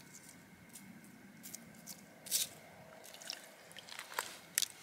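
Scissors snipping through small fish, with wet squishing and a few sharp clicks.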